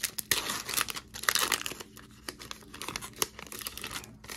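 Crinkling and rustling of a torn plastic trading-card pack wrapper and a stack of baseball cards being handled, in irregular bursts with sharp clicks.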